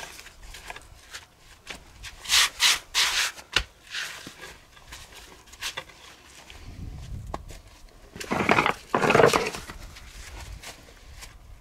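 Rough scraping or rubbing strokes: three quick ones a little over two seconds in, then two louder, longer ones near the end.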